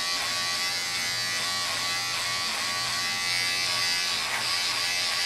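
Corded electric beard trimmer buzzing steadily as it is run over the neck and beard, its hum dipping briefly in pitch now and then.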